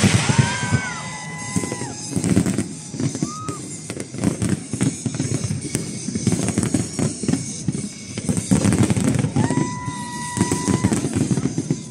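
Fireworks going off in a dense barrage of rapid cracks, crackling and bangs, with music playing along. A held high note sounds near the start and again about ten seconds in.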